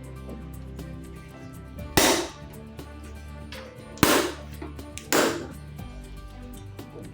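Background music: a slow beat with a sustained bass line and loud, sharp clap-like hits, one about every two seconds, plus an extra hit shortly after the second.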